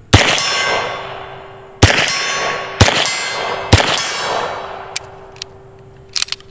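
Four shots from a Beretta M9 9mm pistol, the first just after the start and the last about four seconds in. Each hits a steel gong target, which rings and fades over a second or more. A few light clicks follow near the end.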